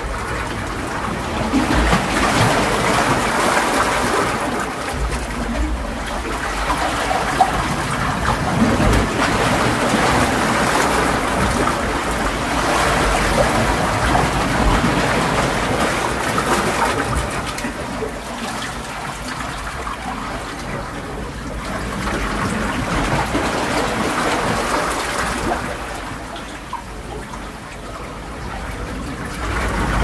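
Ocean surf: waves breaking and washing up a beach, a continuous rushing hiss that swells and eases every several seconds.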